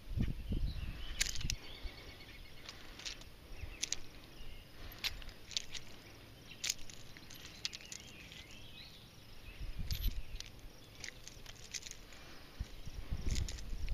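Faint outdoor ambience: scattered sharp clicks and brief faint high chirps, with low rumbles on the microphone about a second in, around ten seconds, and shortly before the end.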